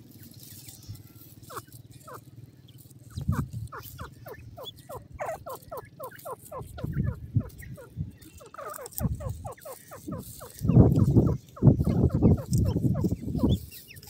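Grey francolins giving a rapid run of short, high chirps that slide downward, about four a second. In the second half, loud low rumbling bursts of noise become the loudest sound.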